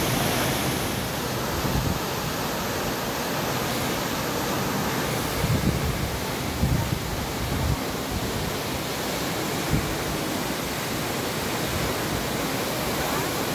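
Steady rushing roar of a tall waterfall's water crashing down, with a few low buffets of wind on the microphone around the middle.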